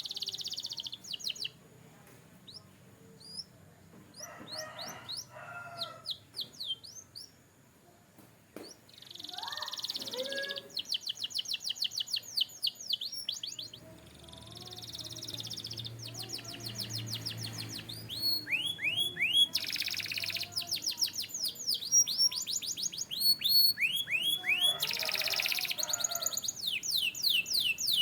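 Canary singing: fast trills of rapidly repeated high, falling notes, delivered in phrases with short pauses between them and some buzzy rolls mixed in.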